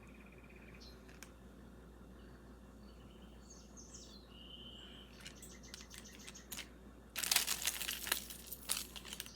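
Plastic jewelry packaging crinkling and rustling in hand, in a burst from about seven seconds in, with a pet bird's soft chirps and short whistles earlier.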